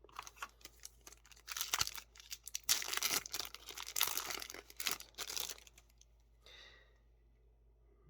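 Foil trading-card booster pack being torn open and crinkled by hand, a run of crackling rustles that dies away after about five and a half seconds.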